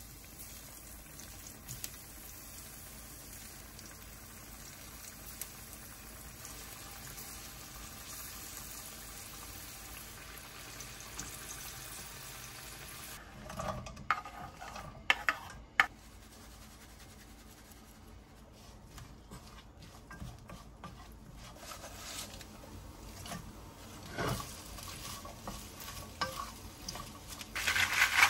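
Food sizzling in a frying pan while a utensil stirs it, with a few sharp clacks of the utensil against the pan about halfway through and more scattered clatter toward the end.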